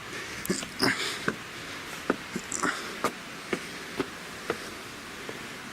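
Footsteps of rubber-soled sneakers on sharp, loose rocks, about two sharp steps a second, of someone climbing a stony dry stream bed.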